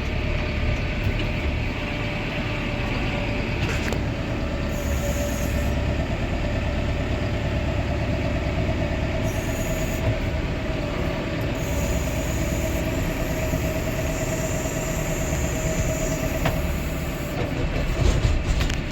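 Farm tractor running steadily, a low engine rumble with a steady whine on top.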